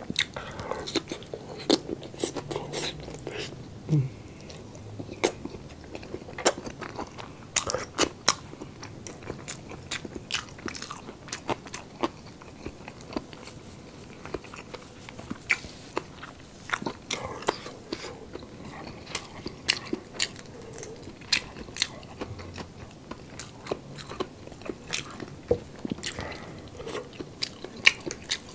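Close-miked eating of roast chicken: biting and chewing, with many irregular wet mouth clicks and smacks.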